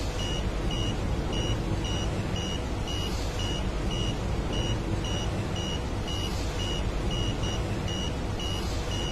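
Piezo buzzer of an Arduino smoke detector beeping a high pitch in an even run of short beeps, about two and a half a second, over a steady hiss. It is the alarm sounding because the MQ-135 sensor's smoke reading is above the alert threshold.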